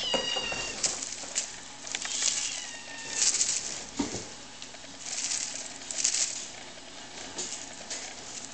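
Birman kittens mewing: a thin high mew right at the start and another about two seconds in, each falling slightly in pitch. Between them come scuffling and rustling bursts as the kittens clamber over the carpeted cat tree.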